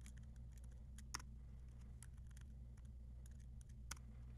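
Faint, scattered computer keyboard keypresses, with two louder ones about a second in and near the end, over a low steady hum.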